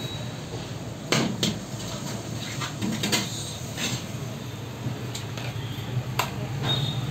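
Large metal ladle knocking and scraping against an aluminium cooking pot while thick masala is scooped, a handful of sharp clanks, the loudest about a second in, over a steady low hum.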